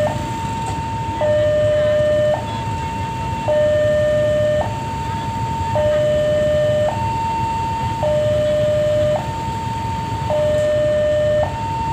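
Railway level-crossing warning alarm sounding its two-tone signal, a higher and a lower tone taking turns about once a second, warning that a train is approaching.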